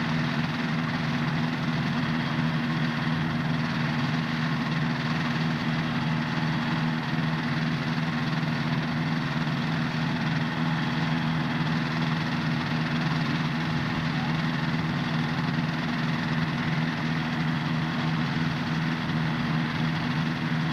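Engines of a homebuilt experimental twin-engine helicopter running at a steady speed, with an even, unchanging low hum.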